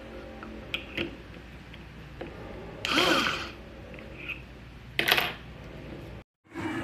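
Plastic parts of an electric food grinder being handled and fitted together: a few light clicks, a longer scraping sound about three seconds in as the lid and bowl are set in place, and a sharp clack about five seconds in. The sound drops out briefly near the end.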